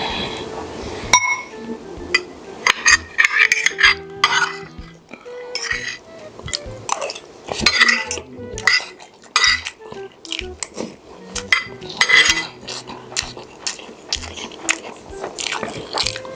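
Cutlery clinking and scraping against a plate during eating, many quick irregular clicks with short pauses between.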